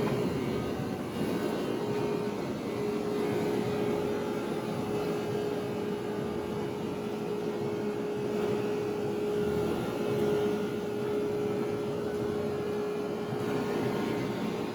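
Steady machinery hum with one constant mid-pitched tone, holding at an even level throughout.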